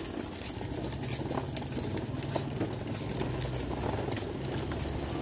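Plastic wheels of a push-along ride-on toy car clicking and rattling over a concrete road as it is pushed. A low steady engine hum comes in under it about a second in.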